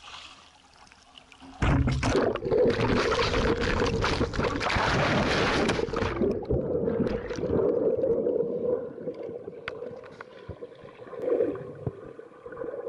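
A camera plunges into a lake: a sudden splash about one and a half seconds in, then a loud rush of bubbling water for about four seconds. After that comes a quieter underwater sound as the camera sinks to the bottom.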